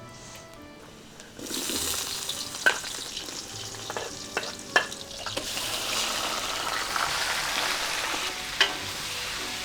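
Food sizzling in a hot pan, starting about a second and a half in, with a utensil knocking against the pan a few times as it is stirred.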